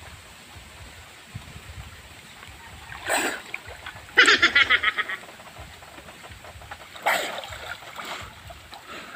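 Water splashing as a swimmer surfaces and moves through a shallow river, over the steady rush of the current: a splash about three seconds in, a loud rapid sputtering burst just after it, and another splash about seven seconds in.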